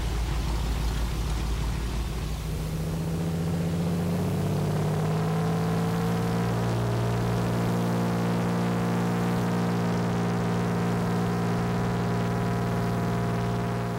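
Floatplane engine running low and rough, then throttled up: its drone rises in pitch over a few seconds to takeoff power and holds steady.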